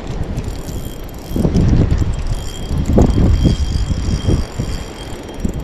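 Fishing reel being cranked, a rough mechanical whirring over a low rumble, with brief louder swells about a second and a half and three seconds in.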